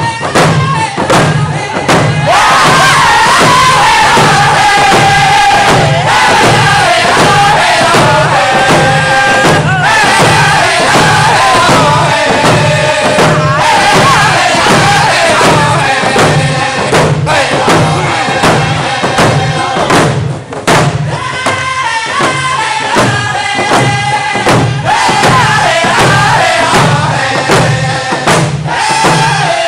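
A group of round dance singers singing in unison in high voices, their melody falling through each phrase, while beating rawhide hand drums in a steady, even beat. The singing dips briefly about two-thirds of the way through as the drumming carries on.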